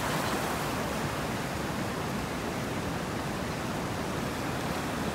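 Steady rush of flowing stream water, an even hiss with no change in level.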